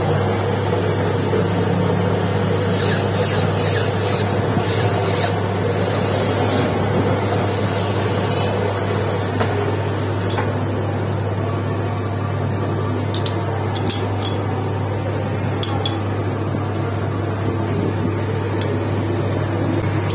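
Metal lathe running steadily with a low hum while its cutting tool scrapes a spinning metal sleeve, a harsh rasping sound. Hissing bursts of cutting come a few seconds in, and a few sharp ticks later on.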